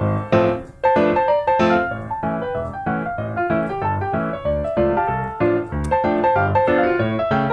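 Background music: a piano tune with a steady beat.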